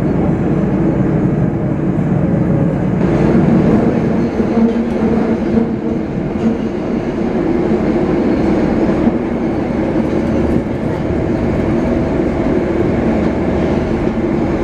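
Tokyo Metro Marunouchi Line subway train running through a tunnel, heard from inside the car: a steady rumble of wheels on rail with a few faint clicks.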